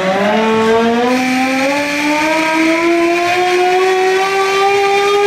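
Ice rink's horn sounding, a siren-like tone that climbs in pitch over its first couple of seconds and then holds steady and loud, signalling the end of the game.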